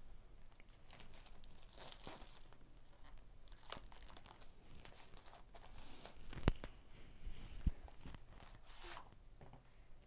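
Packaging on a Blu-ray mediabook being torn and crinkled as it is unwrapped by hand, in a run of short, quiet rustles, with one sharp knock about six and a half seconds in.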